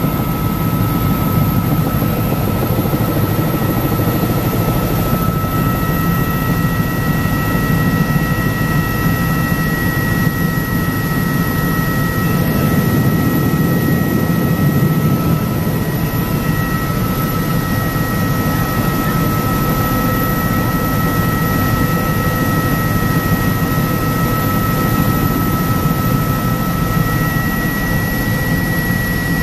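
Helicopter in cruise flight heard from inside the cabin: a steady, loud rotor and engine rumble with a high, even whine over it.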